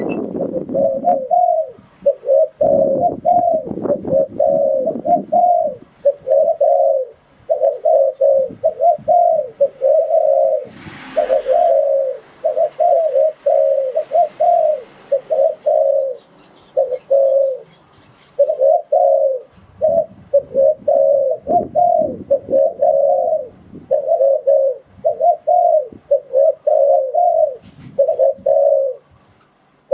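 Spotted dove cooing over and over in runs of short, quick coo notes with brief pauses between phrases. A short hiss comes about eleven seconds in.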